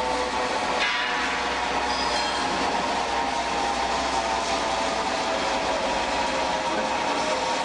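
Steady loud machinery noise with a low hum and several steady whining tones, and a brief clank about a second in.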